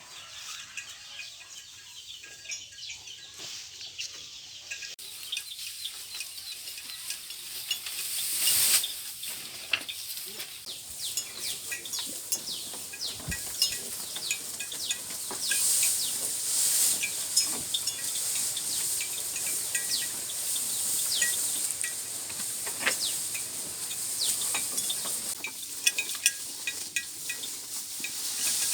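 Fresh grass being cut by hand: a long run of quick crisp snips and rustling stems, one stroke after another.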